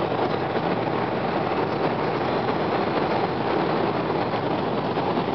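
Steady, loud engine, wind and tyre noise from inside the cabin of a 2008 Chevy Impala stock car at high speed on the banked oval, holding level with no shifts or revving.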